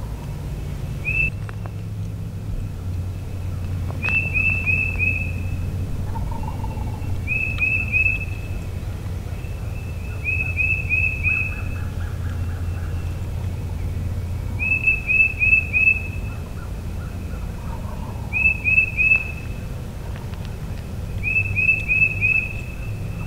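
A songbird repeats a phrase of three or four short rising whistled notes about seven times, every three or four seconds; it is the loudest sound. Wild turkeys gobble faintly in the distance a few times under it.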